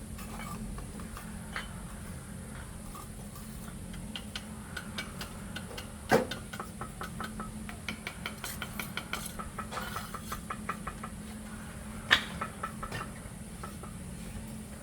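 Light metallic clinking and knocking, with two louder knocks about six and twelve seconds in, over a steady low hum.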